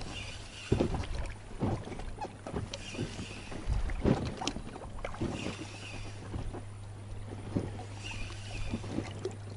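Spinning reel wound in short bursts about every two and a half seconds, a step retrieve of a jig lure, over water splashing with small knocks and a steady low hum.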